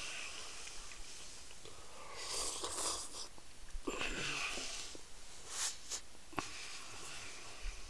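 A person breathing noisily, several short hissing breaths and sniffs.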